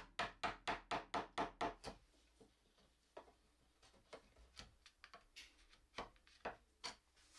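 A quick run of about eight light, evenly spaced knocks, about four a second and fading away, followed by a few scattered fainter taps.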